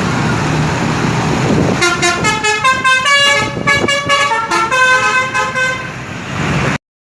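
Telolet basuri musical bus horn playing a quick tune of short notes that change pitch, starting about two seconds in over a steady rumble. The sound cuts off abruptly near the end.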